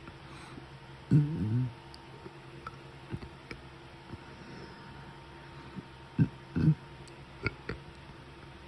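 A girl burping: one long burp wavering in pitch about a second in, then two short ones a little past six seconds, with faint clicks between.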